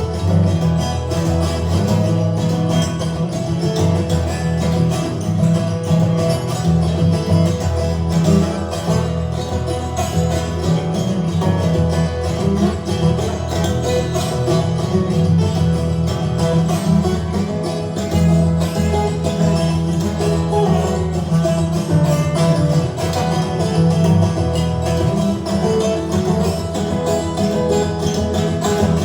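Live instrumental passage of a country-style song, with plucked and strummed acoustic strings playing on without vocals.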